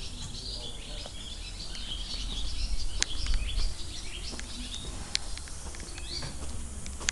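Small birds chirping and twittering continuously in many short high calls, over a low rumble that swells for a second or so near the middle. A few sharp clicks stand out.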